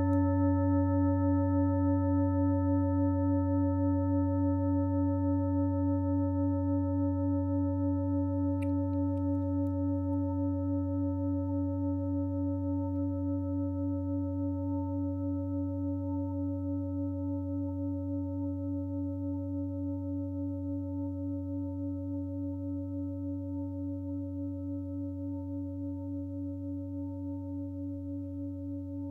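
Large 32 cm five-metal singing bowl ringing with a very deep tone, its higher overtones layered above. The tone wavers in a steady beat and slowly fades.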